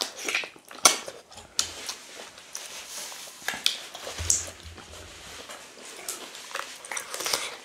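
Close-up eating sounds: irregular wet chewing, lip smacks and clicks from two people eating fufu, ogbono soup and chicken by hand.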